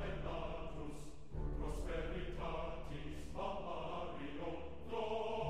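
Choral music: a choir singing slow, sustained chords over a steady low accompaniment, the chord changing every second or so.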